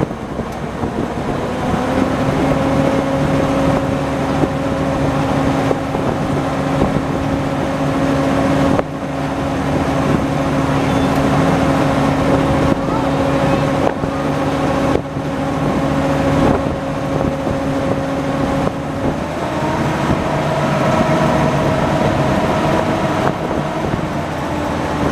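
WWII-era DUKW amphibious duck boat's engine running steadily under way on the water, an even drone whose pitch rises slightly about three-quarters of the way through.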